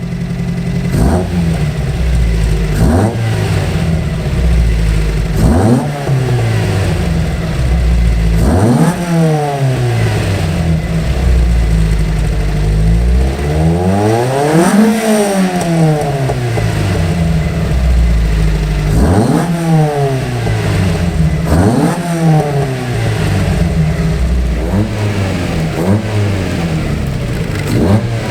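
Toyota MR2 Mk1 (AW11)'s 4A-GE four-cylinder engine through a straight-through Supersprint muffler, revved up and down again and again, with one slower, longer rise and fall about halfway.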